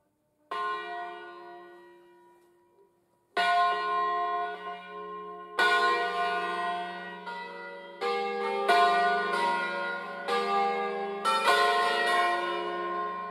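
Five church bells cast by Angelo Ottolina of Bergamo in 1957, swung on wheels, starting a solemn peal: a single stroke about half a second in rings on and fades, two more strokes follow a couple of seconds apart, then the strokes come closer and closer together as more bells join.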